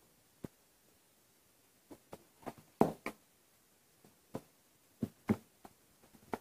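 Irregular plastic clicks and light knocks from a Ricoh SP 310SFN printer's scanner lid being lifted and a sheet of paper being placed and pressed on the scanner glass by hand, the loudest knock about three seconds in.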